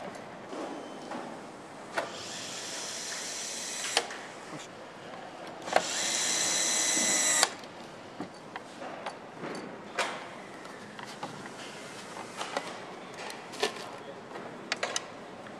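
Power screwdriver running twice, each run about a second and a half long and the second louder, cutting off abruptly. Scattered clicks and knocks of parts being handled.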